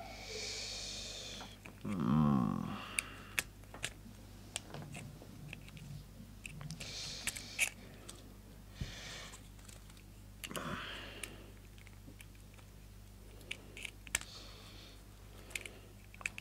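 Screwdriver working on a plastic contactor housing, with scattered small clicks and taps of the screwdriver and plastic parts being handled. Two brief louder rubbing sounds come about two seconds in and again about ten seconds in.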